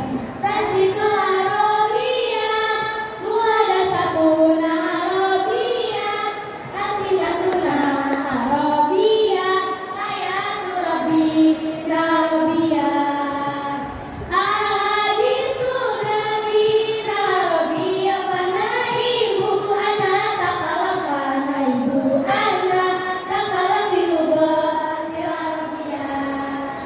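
Girls' voices singing a melody together, the line sliding and ornamented up and down, with a few sharp knocks at moments.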